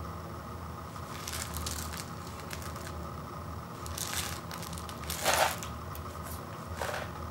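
A sealed instant rice cup with a foil lid being handled and turned over in the hands: a few short crinkles and scrapes, the loudest about five seconds in. A faint steady hum sits underneath.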